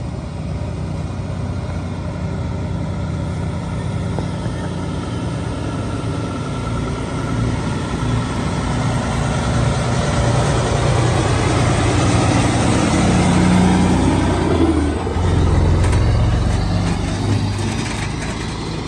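Diesel engine of a Peterbilt semi truck pulling a loaded step-deck trailer past, with tyre and road noise. It grows louder as the rig approaches and is loudest a few seconds before the end, as it goes by.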